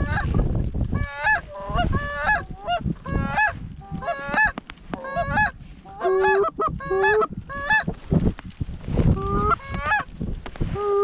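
Canada goose honks, blown rapidly on hunters' goose calls: a steady run of loud two-note honks, about two a second, with a few lower held notes from about six seconds in and a short pause near eight seconds. A low rumble runs underneath.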